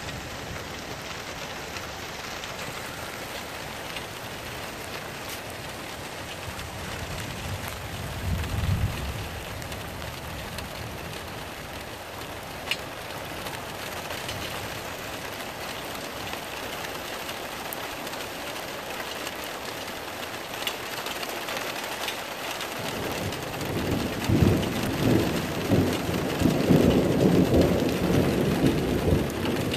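Steady rain hissing down, with thunder: a short low rumble about a third of the way in, then a long roll of thunder that builds from about two-thirds through and grows louder toward the end.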